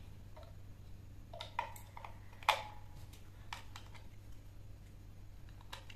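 Small batteries being pressed into the plastic battery compartment of a handheld LED video light: a series of irregular light plastic clicks and taps, the sharpest about two and a half seconds in.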